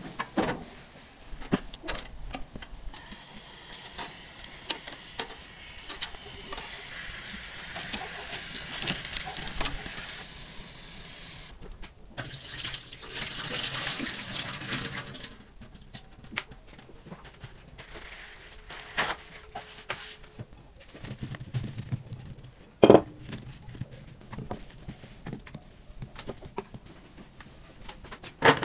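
Water poured out of a wooden vessel, splashing into a steel sink in stretches of rushing noise. Scattered light clicks and knocks of cooking work run between them, with one sharp, loud knock about two-thirds of the way in.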